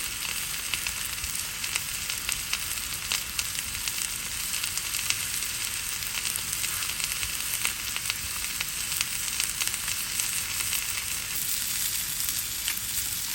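A spatchcocked Cornish game hen sizzling skin side down in a dry pan on high heat, the fat rendering out from under the skin with a steady hiss and a dense patter of small crackles.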